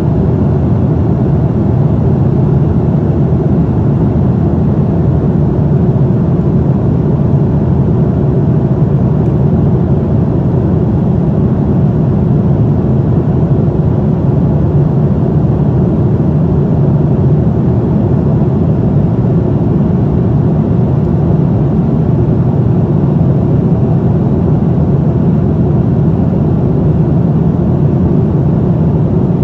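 Steady roar of a Boeing 787-9 in flight, its GEnx-1B engine and airflow noise heard inside the economy cabin from a window seat behind the wing. The noise is deep and even, with no change in level.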